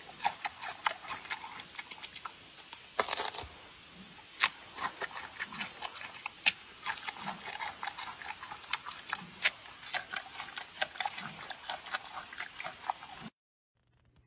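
Giant panda eating soft orange food: rapid wet smacking and clicking as it chews, with a louder crunching burst about three seconds in. The sound cuts off abruptly near the end.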